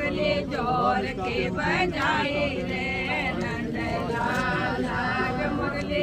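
Several voices chanting together without instruments: Hindu devotional chanting at a ground-breaking puja.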